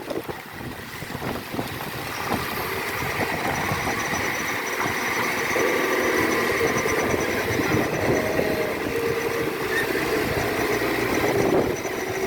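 Diesel dump truck engine running steadily under load, labouring on a slippery climb, getting louder about two seconds in.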